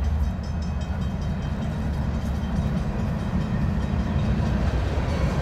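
Diesel locomotive of a slow-moving CN freight train approaching, a steady low rumble that grows slightly louder near the end.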